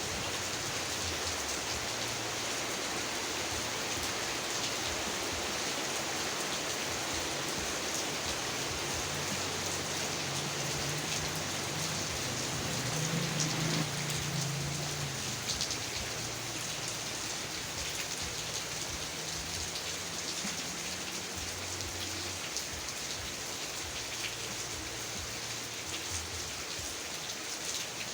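Heavy rain falling steadily: a dense, even hiss of drops with many small sharp drop ticks, swelling slightly about halfway through.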